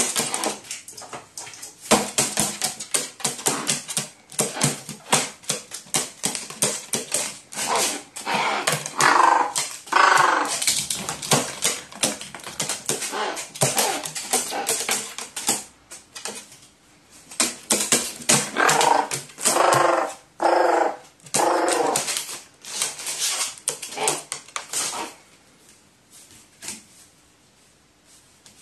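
A crow giving rolling, gurgling 'gorororo' calls, the sign of a crow excited by play: one burst about nine seconds in and a run of them around twenty seconds in. Under the calls is a busy crackling and tapping from the paper balloon in its beak.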